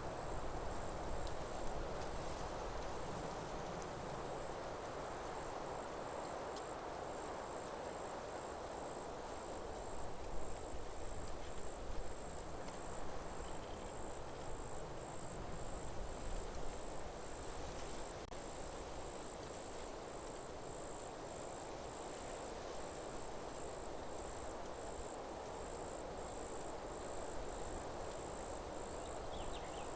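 Crickets trilling steadily in one high pitch, the trill pulsing evenly. Underneath is a steady rushing background noise.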